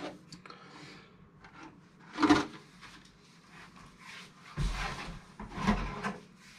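Hands handling packaging and parts on a table: things rubbing and scraping, with one sharp knock about two seconds in and a run of louder scrapes and bumps near the end.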